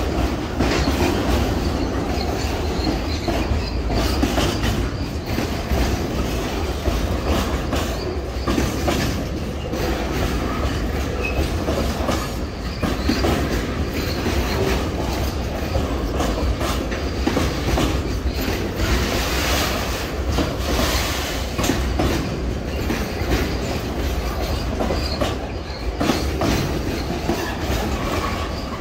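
Freight train of tank wagons rolling past close by: a steady rumble of steel wheels on the rails with repeated clickety-clack over the rail joints.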